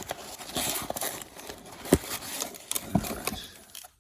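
Rustling and crinkling of plastic-wrapped trading card packs and box packaging being handled and taken out, with scattered clicks and a sharper knock about two seconds in.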